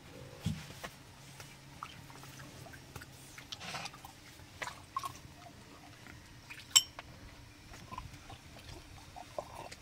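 Quiet, scattered small handling noises and faint wet rubbing as hands are washed, with one sharp click about two-thirds of the way through.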